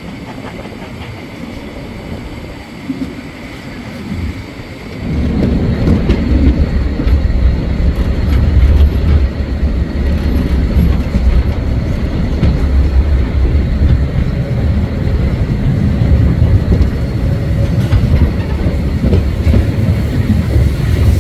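Train running on rails, then about five seconds in a much louder, deeper rumble from a steam locomotive running close by, which holds steady from there on.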